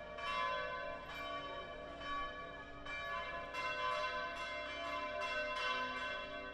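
Church bells ringing for a funeral, struck over and over about once or twice a second, their ringing tones overlapping and hanging on between strikes.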